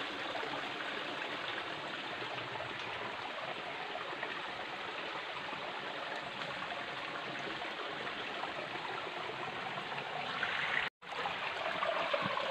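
Shallow forest stream running over rocks, a steady rushing trickle of water. It cuts out completely for an instant near the end.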